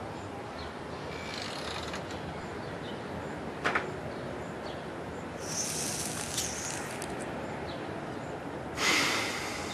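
A dog's breathy snorts and puffs over a steady background hiss: a short click a few seconds in, a hissy puff past the middle and a louder breathy snort near the end.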